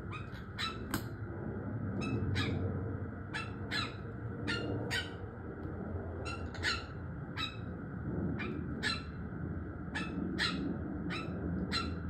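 Quaker parrots (monk parakeets) giving short, sharp chattering calls, about two a second and often in quick pairs.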